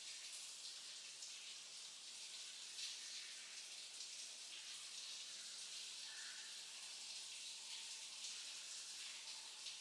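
Faint, steady scratchy hiss of a small eyeshadow brush being swept and blended over the eyelid, with a few slightly stronger strokes.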